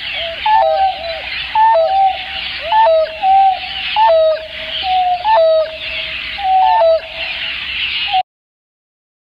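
African wild dog (painted wolf) giving a series of short hooting calls, about one a second, over a steady hiss, stopping abruptly about eight seconds in.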